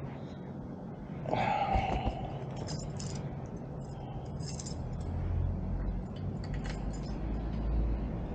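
Motorcycle riding through city traffic: its engine runs steadily under a low rumble of wind and road noise that swells in the second half. A brief louder sound, such as a horn or a passing vehicle, stands out about a second in.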